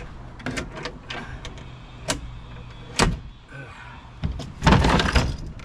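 Knocks and clicks of the camper's fold-out fittings being handled, then a loud rattling clatter about four and a half seconds in.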